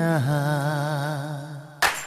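Background music: a low held note with a wavering vibrato, slowly fading, then a single sharp percussion hit near the end.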